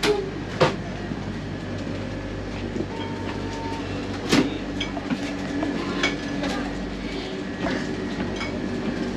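Steady low mechanical drone with sharp knocks and clicks scattered through it, the loudest near the start and about four seconds in.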